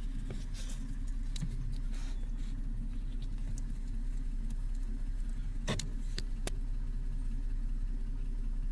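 2006 Toyota Sienna's V6 engine idling steadily, with three light clicks about six seconds in.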